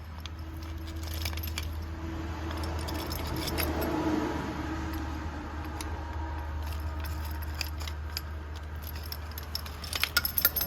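Steel chisel scraping and grinding corrosion out of a pump pressure-regulator body: a continuous metal-on-metal scrape, with a few sharp metallic clicks near the end.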